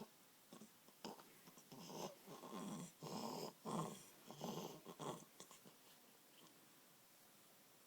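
Baby snoring and grunting in its sleep: a quick run of about seven short, noisy breaths, then quiet near the end.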